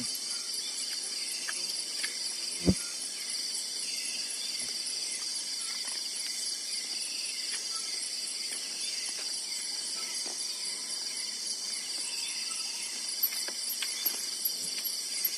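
Chorus of forest insects, crickets among them, buzzing steadily in several high-pitched bands. A single sharp knock comes about three seconds in, and a fast high chirping grows clearer near the end.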